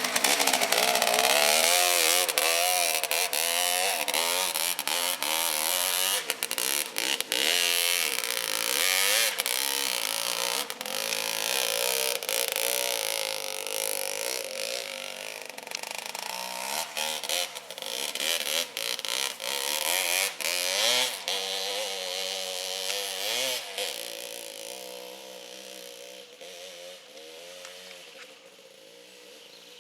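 Agrale motorcycle engine roaring as it climbs a hill, its pitch swinging up and down again and again with the throttle and gear changes. It fades steadily in the second half as the bike rides away up the slope.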